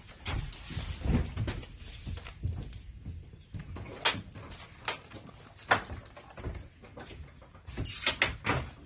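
Scattered knocks, thumps and sharp clicks inside a horse trailer as a horse is tied in its stall and a person walks down the trailer floor, with a cluster of knocks near the end.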